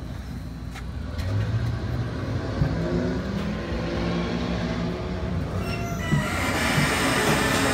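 A large vehicle or machine running, with a low shifting hum and squeal that grow louder, joined by a loud steady rushing noise about six seconds in.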